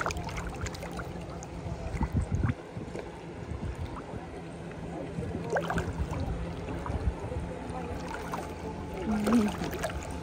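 Shallow sea water lapping and splashing softly around a floating swimmer, with scattered small splashes, over a steady low hum and faint distant voices.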